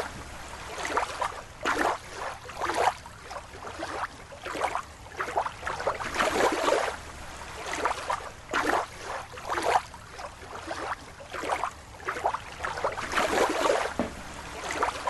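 Water sloshing and splashing in irregular surges, about once or twice a second.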